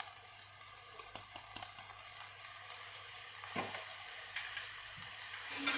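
Faint crackling and a few light ticks from a frying pan of mushrooms cooking on the stove, with a soft knock about three and a half seconds in.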